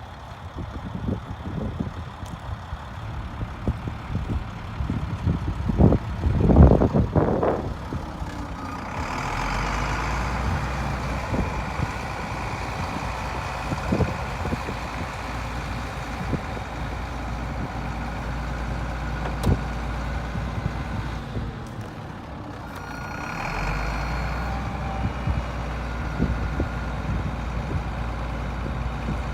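1996 International 4900 bucket truck running with a steady low drone that sets in about nine seconds in, fades briefly a little past the middle and comes back. Before the drone there are scattered knocks and a loud clatter about six seconds in.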